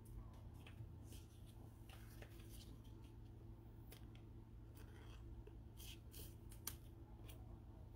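Faint, scattered light clicks and scrapes of trading cards being handled and slid against each other in gloved hands, over a low steady hum.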